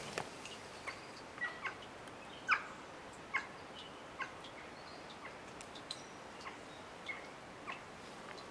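A dozen or so short, sharp chirps from an animal in the trees, coming irregularly about once a second, each dropping slightly in pitch, the loudest about two and a half seconds in, over a steady faint hiss of forest background.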